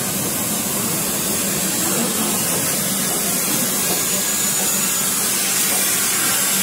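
Steady rushing noise of an Indian Railways express train rolling slowly out of the station, heard at an open coach door, with a steady low hum underneath.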